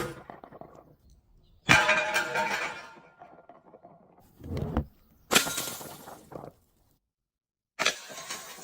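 Glass bottles shattering in three separate smashes, each a sudden crash followed by a fading clatter and ring of glass: the first shortly before two seconds in, the next after about five seconds, the last near the end.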